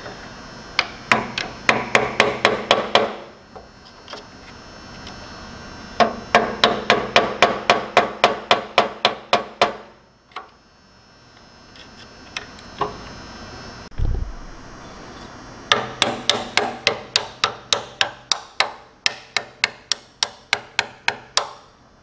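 Rapid hammer blows on a screwdriver, metal on metal, driving out the leaking tine-shaft seal of a Troy-Bilt tiller. The blows come in three runs of about five strikes a second, with pauses between.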